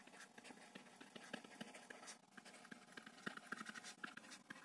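Faint taps and light scratching of a stylus writing on a tablet screen. There is an irregular run of small clicks, busiest a little past the middle.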